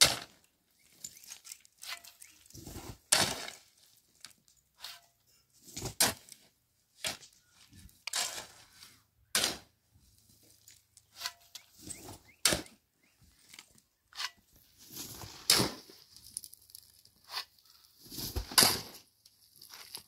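Axe chopping wood on the ground: irregular sharp strikes every one to three seconds, some hard and some light.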